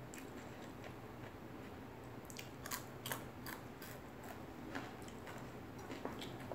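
Faint close-up eating sounds: crisp food being chewed by mouth, with a cluster of sharp little crunches and clicks about two to four seconds in and scattered ones after.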